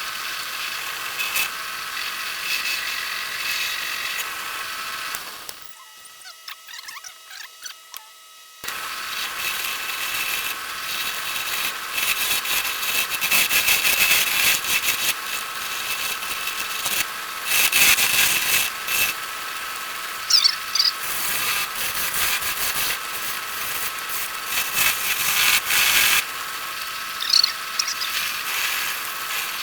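Antique wood lathe running with a turning tool cutting a spinning length of 2x4: a steady motor whine under the harsh scraping hiss of the tool on the wood. The cut stops for about three seconds near the start, leaving only the quieter running of the lathe, then resumes.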